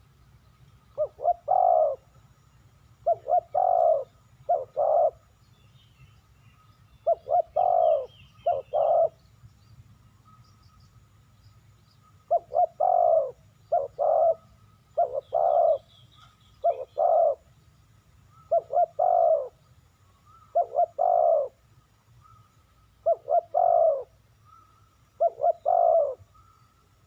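Spotted dove cooing: a repeated song phrase of two or three short, falling coos, given about every two seconds. Faint chirps from other small birds come in briefly a few times.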